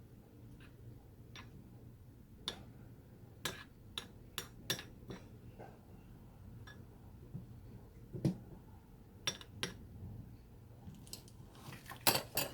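Scattered, irregular clicks and clinks of kitchen utensils against dishes and cookware during food preparation, with a quick cluster of louder clinks near the end.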